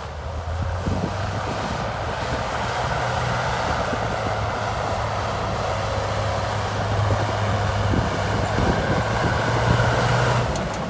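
Heavy construction machine's diesel engine running steadily, a continuous low drone that shifts abruptly shortly before the end.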